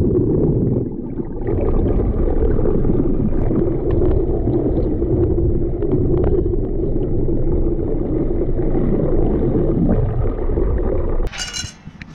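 Underwater sound picked up by an action camera in its waterproof housing: a dense, muffled rumble of moving water with a steady low hum and a few faint ticks. Near the end it cuts off abruptly, followed by a brief metallic clatter and then a much quieter background.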